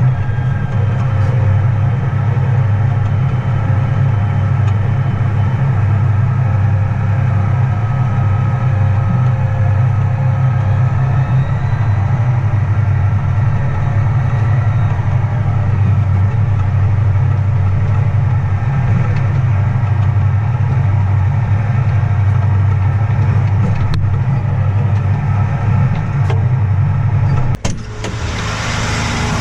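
A vehicle engine running steadily with a deep, even drone. Near the end the drone stops abruptly and a brighter, hissier noise takes over.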